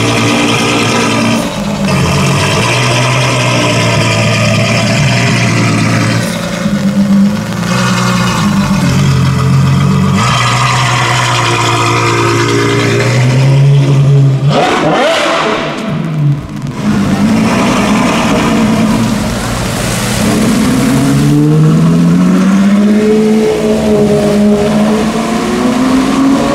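Supercar engines running loud. One car passes close about halfway through with a quick sweep in pitch, and near the end engines rev up through the gears, their pitch rising in repeated climbs.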